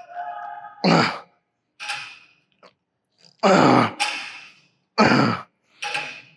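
A man grunting and groaning with effort: about six short, loud voiced bursts, some falling in pitch, with brief silences between them.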